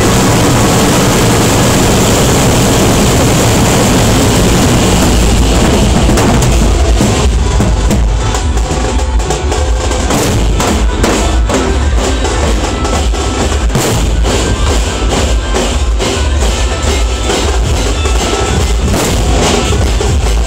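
Drum troupe of large barrel drums beaten with sticks, many drummers pounding together in a loud, fast rhythm over a constant deep bass. About seven seconds in, the strokes come through sharper and more separate.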